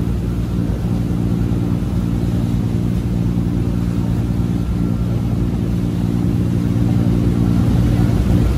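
Boat engine running steadily at cruising speed: a constant low drone with a hiss of water and wind over it.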